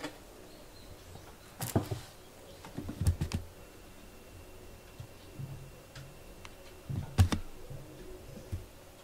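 A cat batting and pouncing on a small fabric toy on the floor: scattered knocks and rustles, loudest about a second and a half in, around three seconds, and about seven seconds in.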